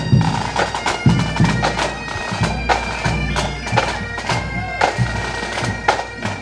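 Marching pipe band playing: bagpipes sounding steady held notes over their drones, with drum strokes beating along.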